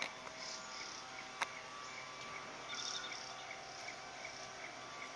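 Insect chirping: a short high note repeating evenly, about two or three times a second, over a low steady hum. A single sharp click sounds about one and a half seconds in.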